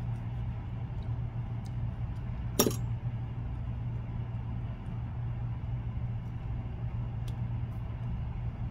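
Steady low hum with one sharp click about two and a half seconds in and a few faint ticks: small handling noises while tying a fly at the vise.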